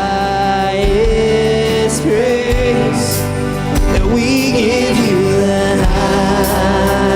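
Live church worship band playing contemporary worship music, with a melodic line held and gliding over sustained chords and bass.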